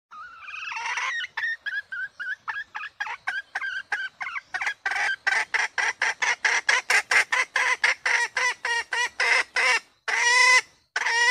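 Red junglefowl hen calling: a first longer call, then a long run of short clucks at about four a second, growing louder partway through. The run ends in two longer drawn-out calls.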